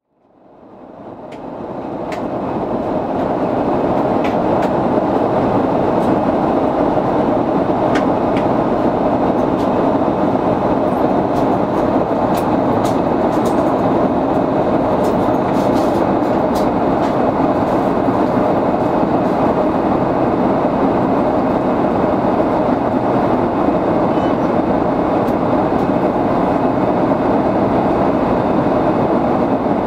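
Steady, loud cabin noise inside an Airbus A330-300 airliner: the rush of air and engines, with a few light clicks and rattles. It fades in over the first couple of seconds.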